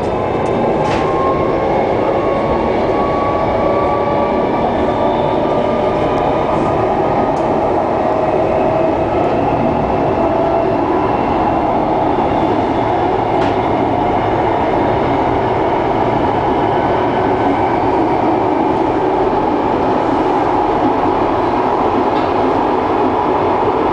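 SNCB AM96 electric multiple unit accelerating, heard from on board. Its traction motors whine in several tones that rise slowly in pitch over the first half, then fade into steady rolling noise of wheels on rail, with a couple of faint clicks.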